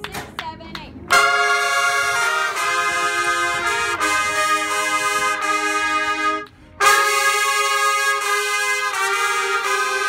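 A section of about seven trumpets playing a phrase together in held notes that change pitch, starting about a second in after a few sharp claps. The playing breaks briefly for a breath about six and a half seconds in, then carries on.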